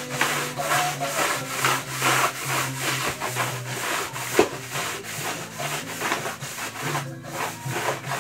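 Coconut-husk floor polisher (bunot) scrubbing back and forth across the floor, a rough rasping stroke about twice a second, with one sharp knock about four seconds in.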